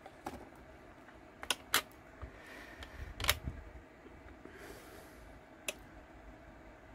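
A few sharp plastic clicks and taps as a clear acrylic stamp is inked on an ink pad and set down to stamp on tissue paper on a craft mat. The loudest tap comes about three seconds in, and there is a brief soft rustle shortly after.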